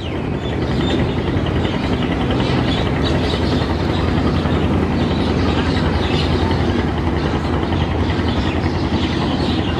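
Steady, loud rumble and rushing noise of a river passenger launch's engines running underway.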